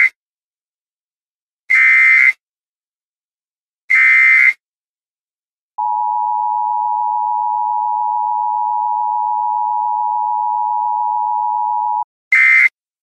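Emergency Alert System tones: three short, harsh electronic data bursts about two seconds apart, then a steady two-tone attention signal held for about six seconds, cut off by one more short data burst near the end.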